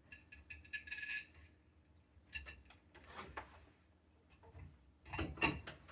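Small metal lock hardware being handled, clicking and clinking: a quick run of bright rattling clicks in the first second, a few scattered ticks, then another cluster of clicks about five seconds in.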